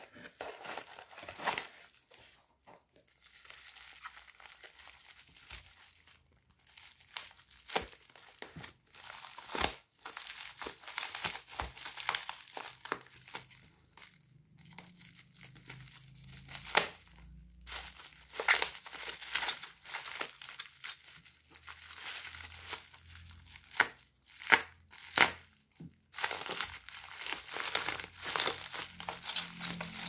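Black plastic bubble wrap crinkling and tearing as it is handled, slit open with a folding pocket knife and pulled apart, in irregular bursts of rustling that are loudest and most continuous near the end.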